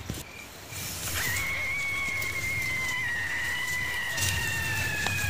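Crickets chirping briefly at the start, then about a second in a long high whistling tone comes in suddenly and holds, sliding slowly down in pitch: an eerie horror sound effect.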